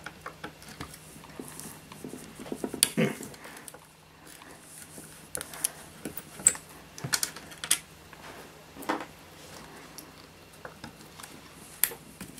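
Screwdriver and small screws clicking and clinking as flat-head screws are taken out of the front plate of a Soviet avionics punch card reader: irregular taps and knocks, with a louder cluster about three seconds in.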